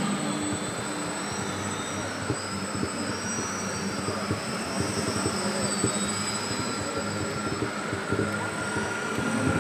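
High whine of a small electric model aircraft's motors, its pitch rising and falling as the throttle changes, over a steady wash of exhibition-hall noise.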